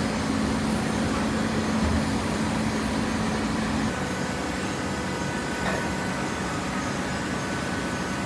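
Hydraulic cardboard baler running: a steady machine hum. About four seconds in, the low hum gives way to a higher, fainter whine.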